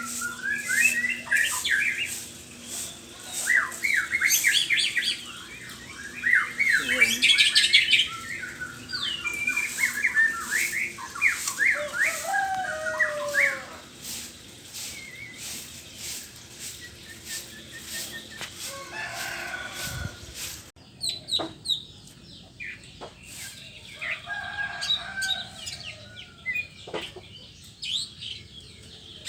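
White-rumped shama (murai batu) singing a rapid, varied run of chirps and whistles. The song is densest and loudest in the first half, then thins to scattered calls.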